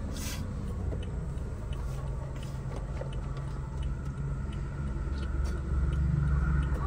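Car engine and road noise heard from inside the moving car: a steady low rumble that grows louder near the end.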